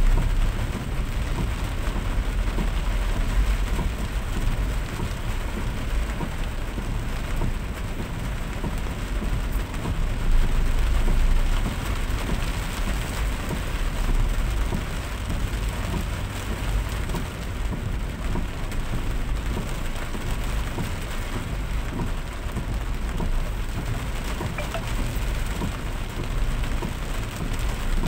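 Steady rain, with a continuous low rumble underneath.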